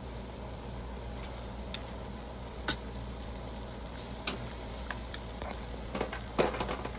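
Metal tongs clicking and tapping against a pan as pieces of browned chicken are laid into gravy, a few scattered clicks with a quicker run near the end, over a steady low hum.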